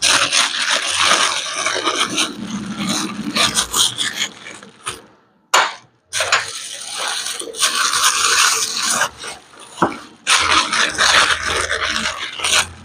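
Rubbing and scraping of metal engine parts being handled while a Honda Splendor motorcycle gearbox is fitted into its engine case. It comes in bouts of a few seconds, with a short pause about halfway through.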